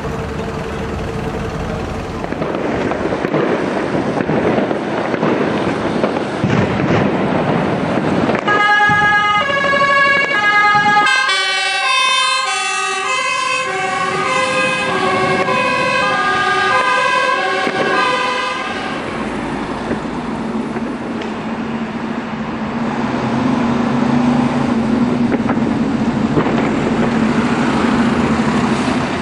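Fire engine's two-tone siren, stepping back and forth between two pitches close by for about ten seconds mid-way, over heavy vehicle engine noise. Afterwards a fire truck engine runs with a steady low hum.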